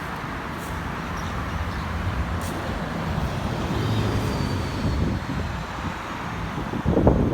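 Street traffic going by, with a heavy vehicle's low engine rumble swelling about halfway through. Wind buffets the microphone near the end.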